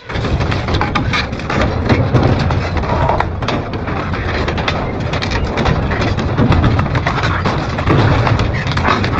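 Double-shaft industrial shredder running with a steady low drone, its shafts tearing through material with constant irregular cracking and knocking.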